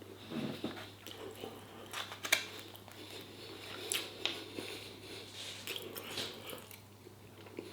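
A person chewing a mouthful of chicken and rice, with soft wet mouth sounds and a few scattered sharp clicks.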